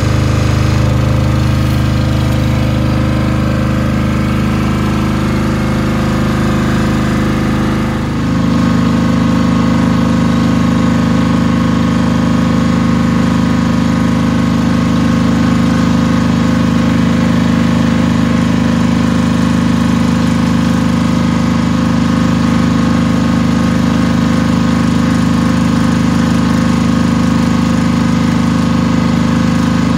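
Kirloskar iGreen 5 kVA diesel generator engine running steadily in its cool-down run before automatic shutdown. Its note steps up slightly about eight seconds in, then holds steady.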